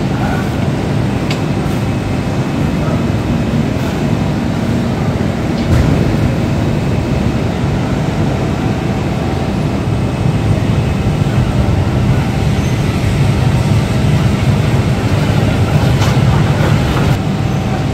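Fully automatic Sankon fabric spreading machine running along its cutting table, a steady low rumble over the general drone of the factory floor. It gets a little louder about six seconds in.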